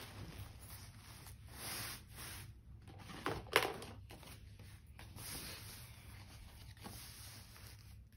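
Rustling and swishing of a large plastic sheet being unfolded and smoothed flat, then a stiff card being handled and laid down, with a sharp crackle about three and a half seconds in. A steady low hum runs underneath.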